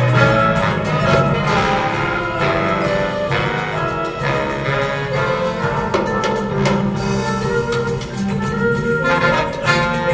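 Jazz big band playing in full ensemble: trumpets, trombones and saxophones sounding sustained chords together over drums and percussion.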